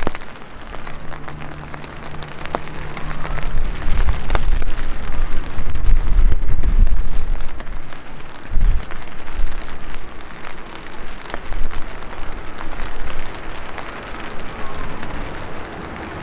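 Boeing 737-800 jet airliner landing: a low jet-engine rumble that swells to its loudest in the middle, under a steady hiss like rain.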